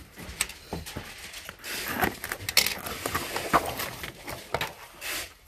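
Cardboard box being torn open and handled: rustling and tearing of cardboard with scattered sharp clicks and knocks.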